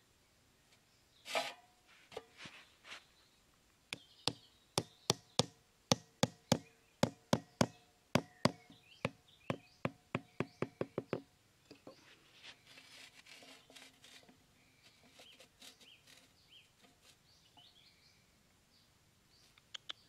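A run of about twenty sharp knocks, roughly three a second, as thin bamboo stakes are tapped into the ground beside a tin milk can with a machete, some with a faint metallic ring. Fainter taps and scraping follow.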